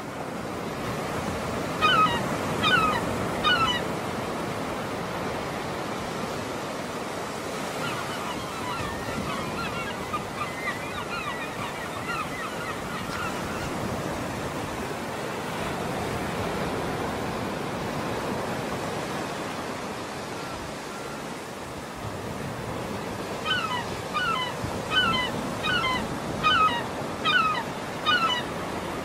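Waves washing on the shore, a steady surf noise. A bird gives about three short, pitched calls about two seconds in and a run of about eight more near the end, with fainter chirping in between.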